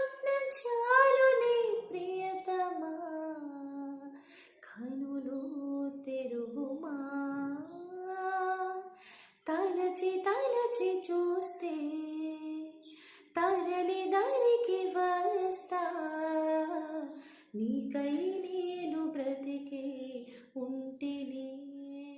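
A female singer performing a Telugu song solo, without instrumental accompaniment. The melody is sung in flowing phrases with short breath pauses about every four seconds.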